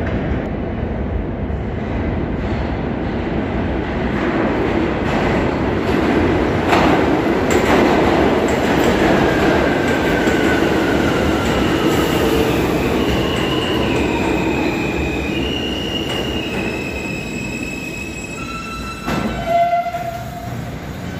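R160 subway train pulling into the station and braking to a stop: rumbling over the rails, with a whine that falls slowly in pitch as it slows, then high wheel squeal as it comes to rest. A short louder sound about nineteen seconds in.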